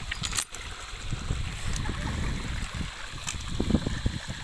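A stream running steadily, under rustling, scraping and a few sharp clicks as a fine nylon fishing net is handled over river stones.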